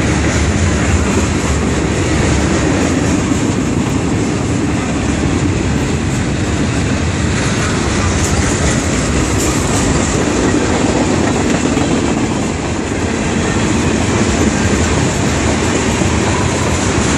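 Freight cars of a Canadian National freight train rolling past, their steel wheels running on the rails in a steady, loud noise that holds level throughout.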